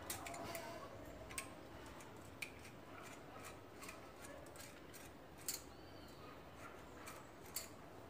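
Small screwdriver clicking and scraping against a ceiling-fan lamp socket while a small part is pried loose from inside it: a few faint, scattered clicks, the strongest about five and a half seconds in.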